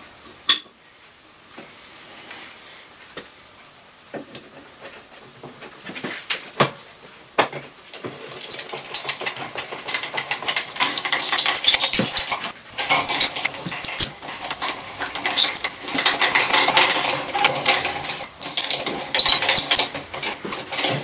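A few sharp clinks and knocks of parts being handled, then from about eight seconds in a long, busy stretch of scraping and rubbing with high squeaks, as of metal parts and packing being worked on by hand.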